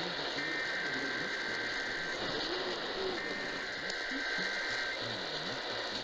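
Emergency Alert System SAME header data bursts: two harsh, buzzing digital bursts, each a little under two seconds long and about a second apart, heard over a hissy radio receiver. These are the coded header that opens an EAS alert, here the start of a station's required monthly test.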